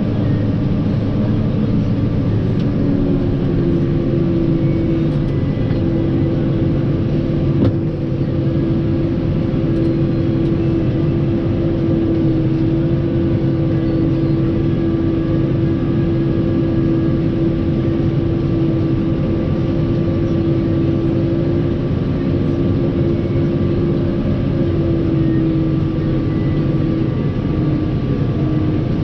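New Holland TX62 combine harvester running steadily while harvesting wheat: a loud, even mechanical drone with a steady hum. There is a single brief knock about eight seconds in.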